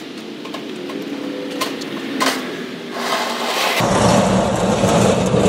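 A Blackstone griddle on its wheeled steel cart: a few sharp metal clanks as it is handled and set down, then its casters rolling across asphalt with a louder, steady rumble from about four seconds in.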